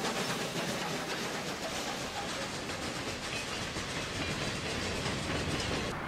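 A train running along the rails: a steady rushing noise.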